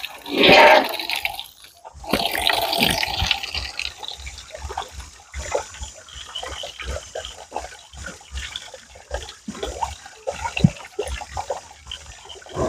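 A thin stream of water from an overhead pipe splashing down into a pig pen, with a steady hiss, while pigs chew and crunch chopped green feed in short irregular clicks. A brief loud noise about half a second in.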